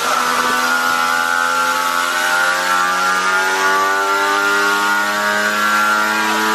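Yamaha PW80 two-stroke single-cylinder dirt bike engine on a chassis dyno, held under load with its revs climbing slowly and steadily in one long pull.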